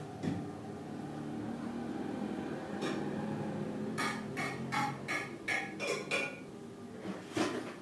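A quick run of about seven sharp, slightly ringing clinks over two seconds, then one more near the end, over a low steady hum.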